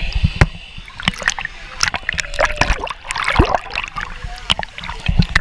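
Water sloshing and splashing around a GoPro that is carried underwater and then bobs at the surface of a water-park rapids river. Many sharp knocks and pops of water against the camera housing, with bubbling.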